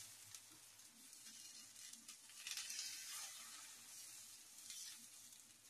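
Faint sizzling of dosa batter on a hot pan as a ladle spreads it in circles, the hiss swelling and fading, loudest about halfway through.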